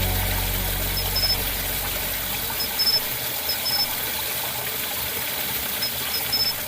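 Mountain valley stream running as a steady rush of water, with a small bird's short high chirps in little groups several times.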